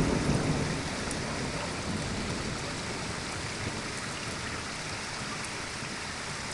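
Steady hiss of heavy rain falling during a thunderstorm, with a low rumble fading out in the first second.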